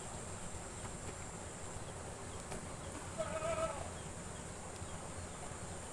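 A single short, wavering animal bleat about three seconds in, over a faint steady outdoor background hiss.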